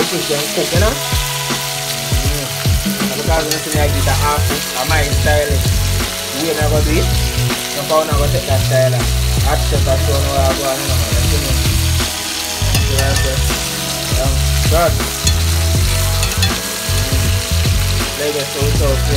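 Whole fish frying in hot oil in a pot, a steady sizzle, with a cooking utensil now and then stirring and turning the fish.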